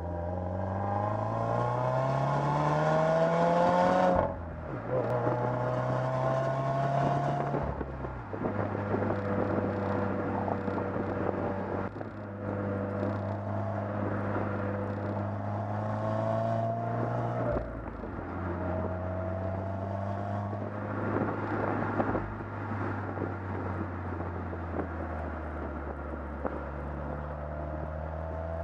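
Exhaust of a 2015 Subaru WRX's turbocharged 2.0-litre flat-four, heard at the rear of the car while driving. The revs climb, drop sharply at a gear change about four seconds in, climb again and drop at another change near eight seconds, then settle into a steadier run with small rises and falls.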